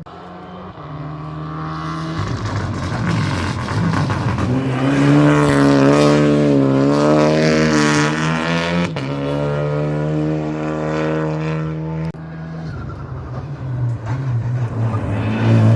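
Rally car engine approaching and passing at full attack: it grows louder over the first few seconds, then revs rise and fall through gear changes and lifts while it is loudest, and it drops away suddenly about twelve seconds in. Another car's engine starts to rise near the end.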